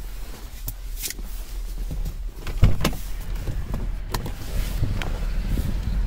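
A person getting out of a car: a string of clicks, knocks and rustles as things are gathered up and the door is opened, the loudest knock about two and a half seconds in, over a low rumble that grows toward the end.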